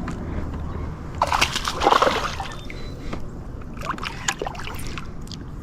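Water splashing and sloshing in short bursts, about a second in and again near four seconds, over a steady low rumble.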